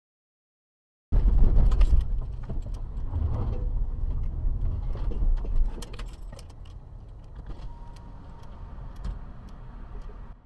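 After about a second of silence, a car's low engine and road rumble heard from inside the cabin, with many light clicks and rattles over it. It is loudest in the first couple of seconds and eases off through the second half.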